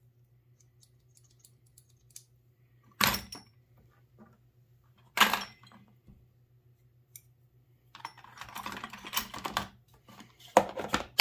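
Tools and parts being handled and packed away: two sharp knocks a couple of seconds apart, then a stretch of rattling and clicking with a few more knocks near the end.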